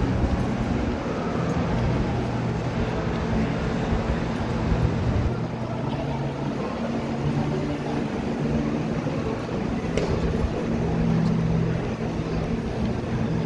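Shopping-mall ambience: a steady hubbub of shoppers walking through a large hall, with a low hum underneath and a single sharp click about ten seconds in.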